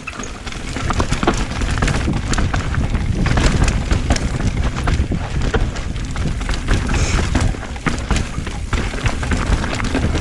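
Mountain bike riding downhill: a steady low rumble of wind and tyres on the trail, with frequent rattles and knocks from the bike over rough ground.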